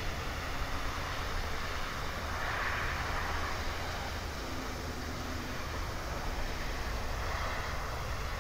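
Thunderstorm outflow wind buffeting the microphone: a steady, choppy low rumble under a broad rushing hiss that swells about two and a half seconds in and again near the end.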